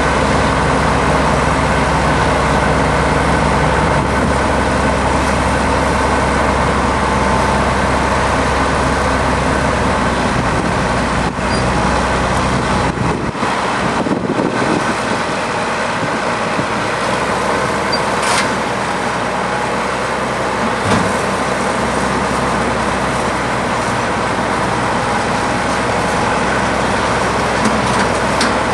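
Heavy diesel engines of crawler side-boom tractors running steadily. The deep low rumble drops away about halfway through, and a couple of light knocks follow.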